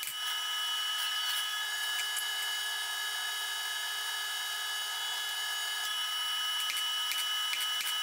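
Blacksmith's forge running: a steady hiss from the fire and its air blower, with a held whine over it. A few faint clicks near the end.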